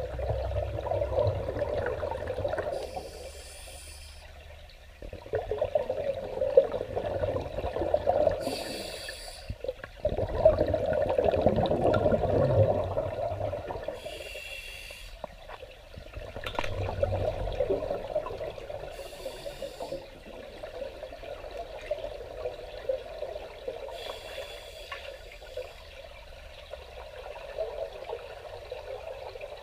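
Scuba breathing heard underwater: a short regulator hiss on each inhale about every five to six seconds, and a bubbling rumble of exhaled air between them that grows fainter in the second half.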